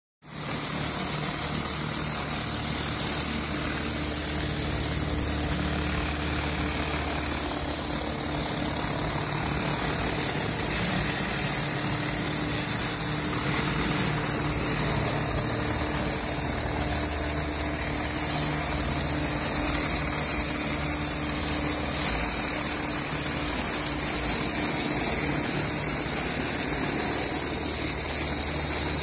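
Hot-water pressure washer running steadily, its rotary flat surface cleaner spraying hot water and steam onto concrete: a constant hiss over a steady engine hum.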